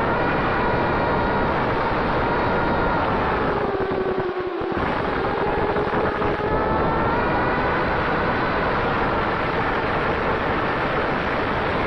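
FPV drone's electric motors whining, the pitch rising and falling with the throttle, over heavy wind noise on the microphone. About four seconds in the motor pitch drops briefly and the wind rumble cuts out for a moment.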